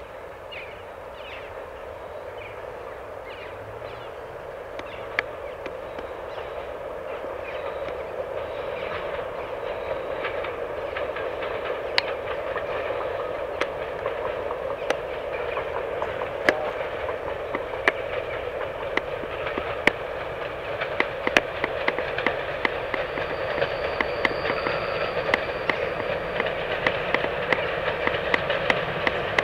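Diesel-hauled passenger train approaching: the locomotives' engine hum grows steadily louder. Sharp clicks of wheels over rail joints grow more frequent and regular in the second half.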